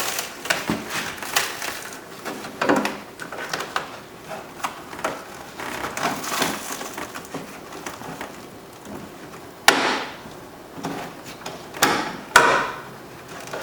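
Crackling and rustling of the plastic water shield inside a car door being peeled back and handled, with scattered clicks and two sharper knocks near the end.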